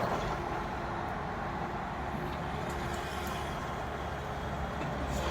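Steady rumble of road traffic passing, with the low hum of heavy vehicle engines.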